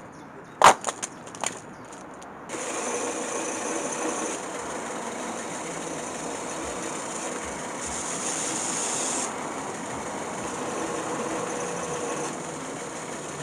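A few sharp knocks, then about two and a half seconds in a bench belt sander comes in and runs steadily with a constant hum as a wooden pallet block is pressed against the sanding belt. The hiss of the sanding gets brighter for a stretch around eight seconds in.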